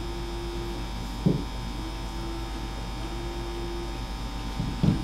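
Steady electrical hum with a higher tone that comes and goes. Two short, dull knocks, about a second in and near the end, come from small wooden kit pieces being handled and pressed together on the table.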